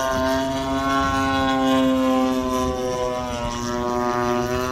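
Engine of a 92-inch AJ Aircraft Laser Z200 RC aerobatic plane, a GP76 turning a 24x9 Falcon propeller, running steadily in flight: a continuous buzzing drone whose pitch wavers slightly.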